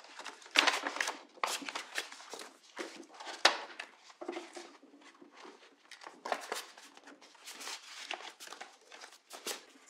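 Paper rustling and crackling as invitation cards and envelopes are handled, folded and slid into one another, in short irregular crackles with the sharpest about half a second and three and a half seconds in.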